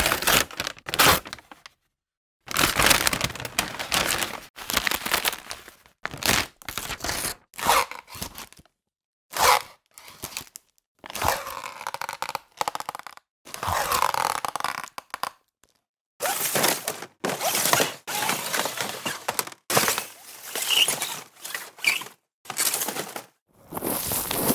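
A string of short, separate sound effects, mostly noisy cracking and scraping kinds, one after another, each cut off abruptly by a gap of dead silence.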